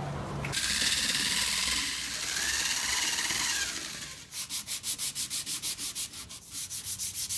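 Pneumatic orbital sander running on hardened filler on a fiberglass jet ski hull, a steady hiss with a faint whine that rises and falls. About four seconds in it gives way to hand sanding with a sanding block, even back-and-forth strokes about four a second.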